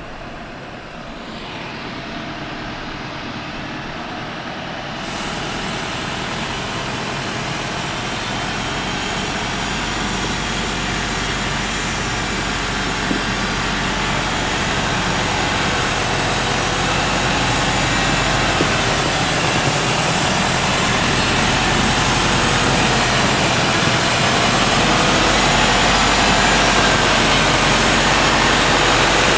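Mercedes-Benz Unimog U 4023's four-cylinder diesel engine running as the truck crawls over rough gravel toward a ledge, growing steadily louder as it draws near.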